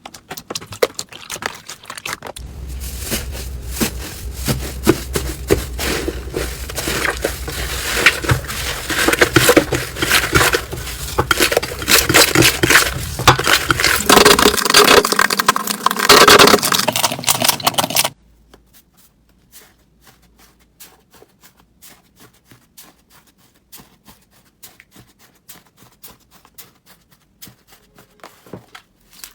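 Slime being squeezed and pressed by hand, with dense crackling and popping clicks. It is loud for most of the first two-thirds, then cuts off abruptly to faint, sparse clicks.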